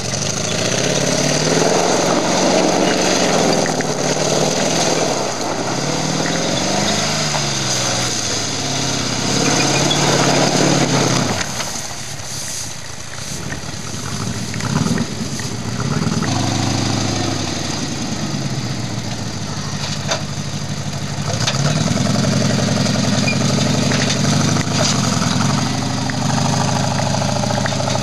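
Trials 4x4's engine revving up and down as the vehicle manoeuvres, easing off about eleven seconds in. Near the end it holds steadier, higher revs under load while the 4x4 climbs loading ramps onto a flatbed truck.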